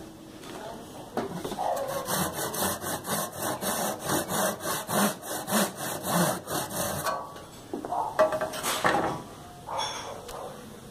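Bahco Superior 22-inch hard-point hand saw cutting through a wooden block in quick, even push-and-pull strokes. The sawing stops about seven seconds in, and a few louder knocks follow.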